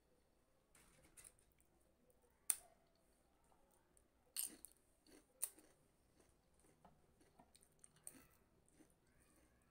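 Crisp fried pappad being snapped and bitten into: a few sharp crunches, the loudest about two and a half seconds in, with faint chewing between.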